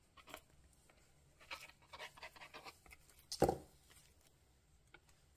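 Faint handling of paper and a glue stick: a run of short rubbing strokes, then a single thump about three and a half seconds in as the cut-out paper pieces are pressed onto the journal page.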